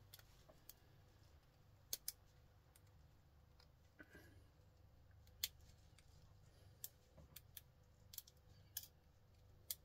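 Small pliers working gold-plated pins out of a plastic computer cable connector: about ten short, sharp clicks at irregular intervals over a quiet room.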